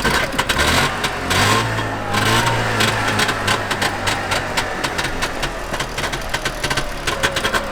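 Trabant engine running with a fast rattling beat; its pitch climbs over the first second or so, holds, and eases off about four seconds in.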